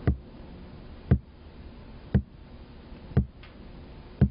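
Korotkoff sounds heard through a stethoscope over the brachial artery: a low pulse thump about once a second, five in all. The blood pressure cuff is slowly deflating, between the systolic and diastolic readings.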